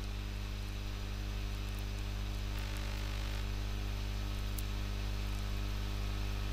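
Steady electrical mains hum with an even hiss underneath, and a couple of faint ticks.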